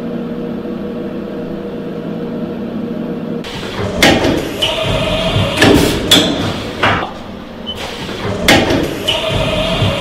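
A steady hum, then, about a third of the way in, a CNC machining centre's automatic tool changer starts working: repeated loud metallic clunks with short whines between them as the changer arm swings and seats the angle head in the spindle.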